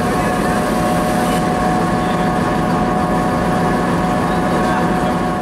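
Diesel locomotive idling steadily, a continuous low engine note with a steady whine above it.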